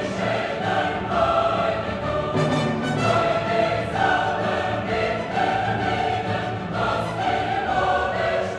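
Background music: a choir singing held notes in a classical, operatic style.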